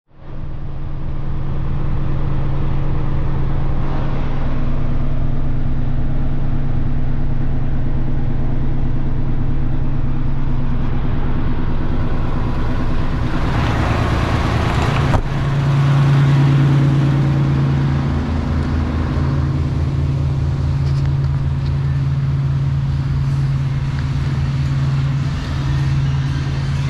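Heavy truck's diesel engine running steadily at raised idle, around 1,000 rpm, during a parked DPF regeneration, started because the particulate filter's soot level is high. About halfway through, a brief rush of hiss and a single knock.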